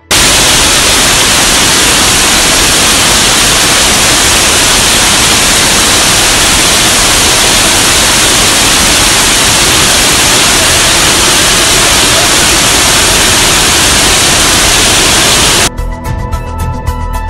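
Loud, steady noise of heavy hail and rain beating on a sheet-metal roof, with water pouring down through the roof. About a second and a half before the end it cuts abruptly to music.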